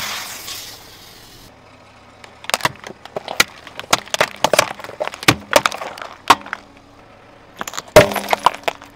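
A car tyre crushing objects on asphalt: a hiss fading out over the first second and a half, like spray escaping from a crushed aerosol can, then a long series of sharp cracks and pops as the tyre rolls over a row of small gel jars, and another cluster of cracks near the end.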